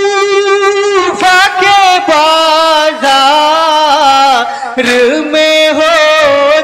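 A man singing a nauha, a Shia lament, unaccompanied: long held notes with a wavering vibrato, the melody stepping down between phrases, with short breaks for breath.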